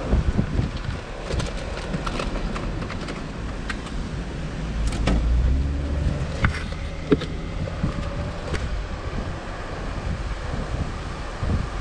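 Jeep Rubicon driving slowly: steady engine and tyre rumble with some wind noise, and scattered light clicks and knocks.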